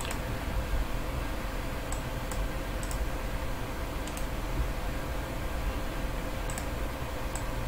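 Computer mouse clicking a few times, sharp single clicks and quick pairs, over a steady low hum of room noise.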